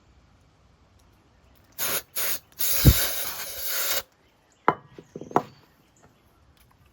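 Compressed air blown into a Microtech out-the-front automatic knife to clear debris from its mechanism: two short hissing blasts, then a longer blast of about a second and a half with a low thump in it. A few sharp clicks follow.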